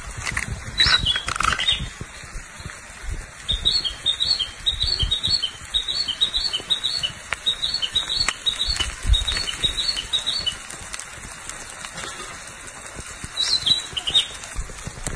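Bird calls: a long run of short, high chirps repeated evenly for several seconds, with a few separate calls before and after. Scattered low knocks and handling sounds sit underneath.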